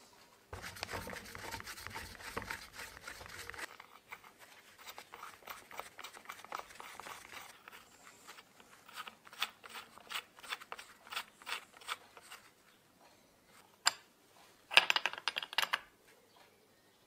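Gloved hands handling a brass air-hose coupling plug and screwing it by its threaded stud into an angle grinder's gear head: a few seconds of glove rustle and scraping, then scattered small metal ticks and scrapes as the thread turns in. Near the end comes a sharp click and then a short, louder burst of metallic clatter as a spanner tightens the fitting.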